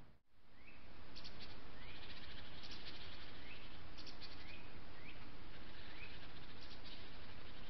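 Small wild birds calling: short rising chirps about once a second, with bursts of quick, high twittering, over the steady hiss of a trail camera's microphone. The sound drops out briefly just after the start.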